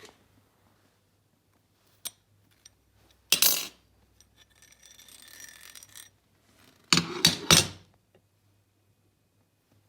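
Metal parts of a Wilton bench vise handled during disassembly: a few light clicks, a clattering knock a little after three seconds, some rubbing, then three louder metal clanks close together around seven seconds in.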